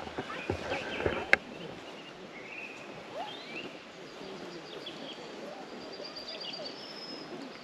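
Small birds chirping and trilling faintly over a low outdoor hiss. A few soft knocks and one sharp click come in the first second or so.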